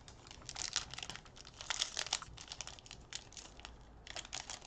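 Plastic wrapper of a Prizm basketball card cello pack crinkling in irregular crackles as hands handle it and pull it open, with a brief lull a little past three seconds in.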